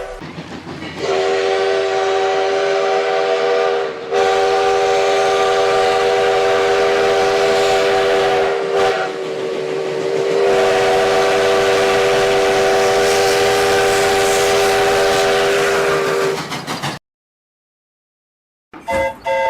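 Multi-chime steam locomotive whistle blown in three long blasts, each longer than the last, its chord of several steady notes over a loud hiss of escaping steam. It cuts off suddenly, and after a short silence a different whistle starts right at the end.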